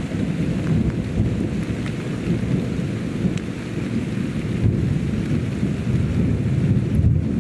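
Long rolling rumble of thunder with rain falling, swelling slightly near the end.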